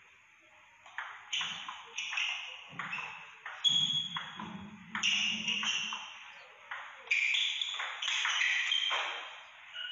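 Table tennis rally: the ball clicking off rubber paddles and bouncing on the table, a quick run of sharp pings spaced about half a second to a second apart.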